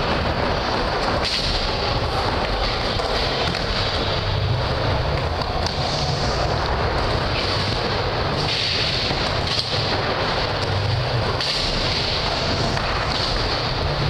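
Skateboard wheels rolling on a wooden mini ramp: a continuous rumbling roar with a few sharp knocks from the board.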